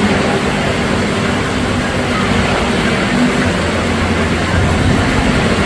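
Wave pool surf churning and splashing: a loud, steady rushing noise with no pauses.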